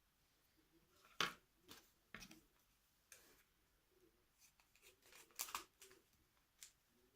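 A few faint, short clicks and rustles about a second apart, from hands handling paper and plastic.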